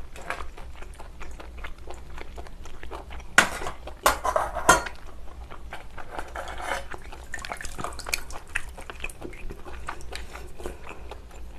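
Wooden chopsticks and fingers clicking and scraping against seafood shells and a glass dish while picking at an abalone in its shell, with a few sharper clicks about four seconds in.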